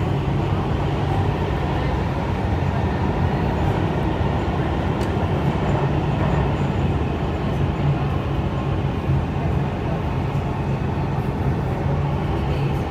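Dubai Metro train running through a tunnel, heard from inside the car: steady, even running noise of wheels on rail, strongest in the low range with a constant low hum.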